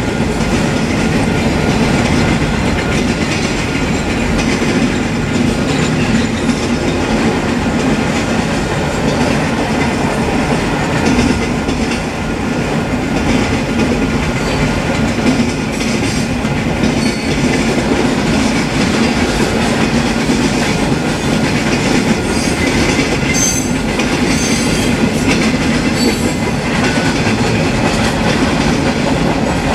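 Freight train cars rolling past: a steady rumble of steel wheels on the rails with clickety-clack as the wheels cross rail joints. A few brief high squeaks about three quarters of the way through.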